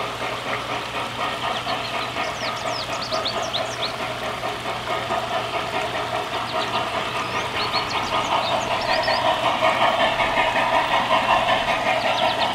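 G scale model steam locomotive and passenger cars running on garden track: a steady whirr of motor, gears and wheels on rail that grows louder from about eight seconds in as the train approaches. Short high chirps sound over it now and then.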